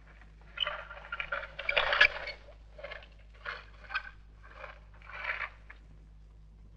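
A hospital stretcher trolley with an IV stand being wheeled in, rattling and scraping in irregular bursts, loudest about two seconds in, dying away about six seconds in.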